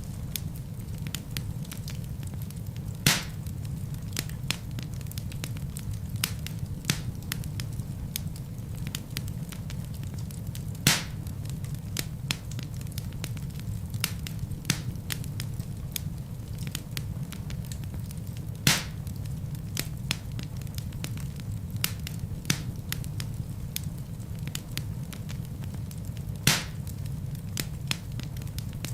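Wood fire burning in a fireplace. A steady low rumble runs under frequent small crackles, with four louder pops spaced several seconds apart.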